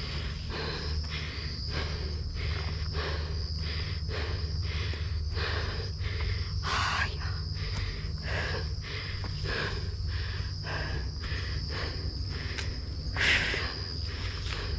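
Steady footsteps on a dirt trail, about two to three a second, over a steady high chirring of crickets, with a louder scuff about 13 seconds in.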